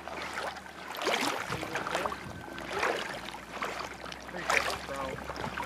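River water sloshing and splashing around a wading angler as he plays a hooked brown trout on a fly rod, in uneven bursts.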